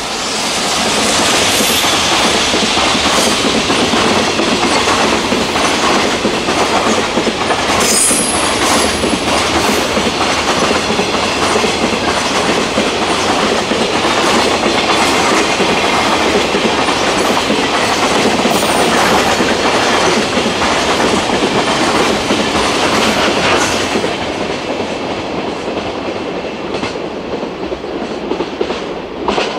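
Freight train of loaded container wagons passing close by, its wheels clattering over rail joints in a dense, steady rumble, with a brief high screech about eight seconds in. The sound falls off about six seconds before the end as the last wagon goes by.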